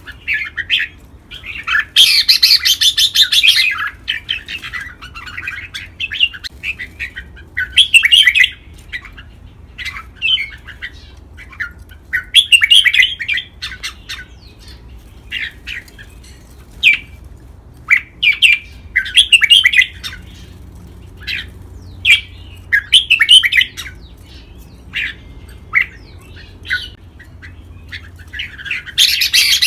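Red-whiskered bulbul song: short, bright warbled phrases every second or two, with a denser, longer burst of song about two seconds in and again near the end.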